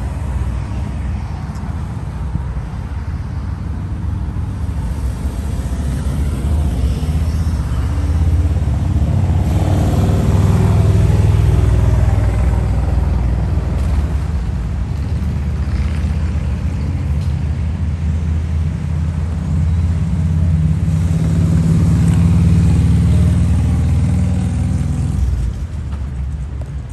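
Road traffic going by: a steady low rumble of car engines and tyres that swells as vehicles pass close, about ten seconds in and again a little past twenty seconds.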